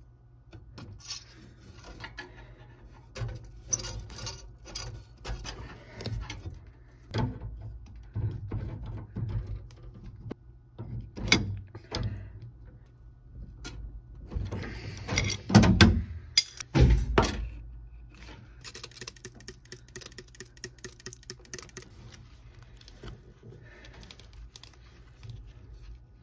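Hands handling a brass thermostatic expansion valve and its copper line fittings: irregular metallic clicks, taps and clinks, with an adjustable wrench knocking against the fittings. The loudest knocks come a little past the middle.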